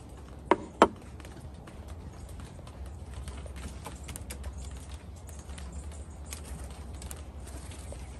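Two sharp knocks in quick succession, about half a second and just under a second in: a small terracotta dish being set down on a wet wooden deck table. Afterwards there is a faint patter of rain drips over a low steady rumble.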